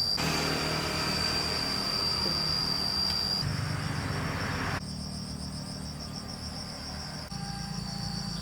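Insects trill steadily at a high pitch throughout. For the first five seconds or so a louder rough mechanical noise with a low rumble sounds over them, then cuts off suddenly, leaving a quieter low hum.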